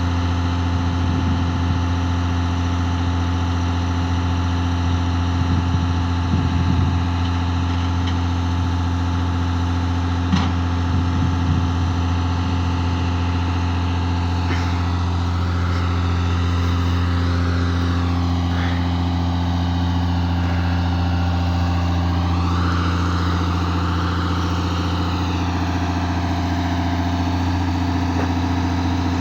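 A crane's engine runs steadily with a deep, unchanging drone. There is a single sharp knock about ten seconds in, and a fainter wavering higher tone rises and falls over the second half.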